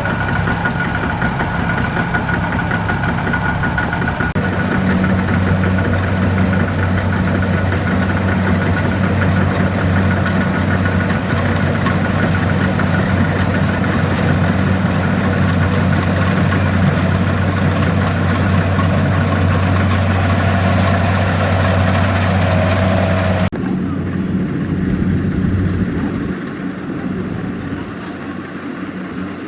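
Kubota DC-70 Plus combine harvester's diesel engine running with a steady low hum. The sound changes abruptly about four seconds in, then turns duller and quieter near the end.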